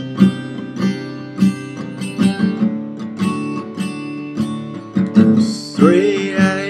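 Acoustic guitar strummed, playing a song's introduction in a steady series of chord strokes. A man's singing voice comes in near the end.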